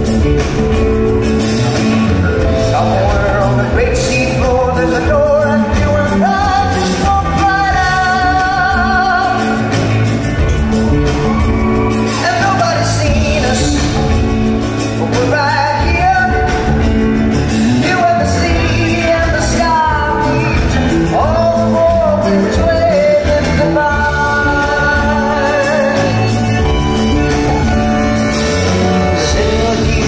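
Live band performing a country-folk ballad: a man singing lead over strummed acoustic guitar, electric bass and drum kit.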